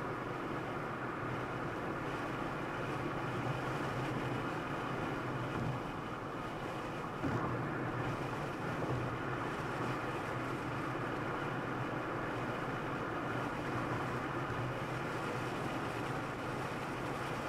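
Steady road and engine noise of a car driving at highway speed, heard from inside the cabin, with a low hum. There is a single light bump about seven seconds in.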